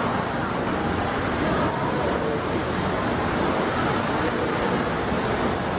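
Steady rushing of swimming pool water sloshing in rough seas, mixed with wind across the open deck.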